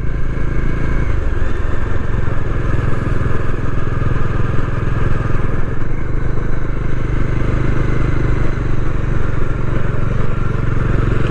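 Bajaj Dominar 400 single-cylinder motorcycle engine running at a steady cruise while being ridden, with wind noise over the microphone.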